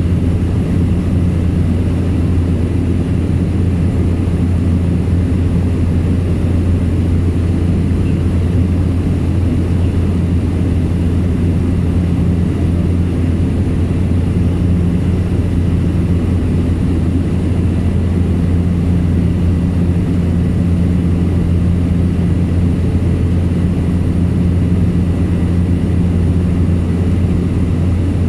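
Aircraft engine and propeller running steadily in cruise: a constant low hum with a few steady higher tones over it.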